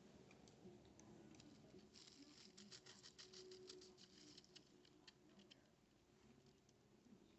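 Near silence: faint room tone with a scatter of faint light clicks, thickest in the middle.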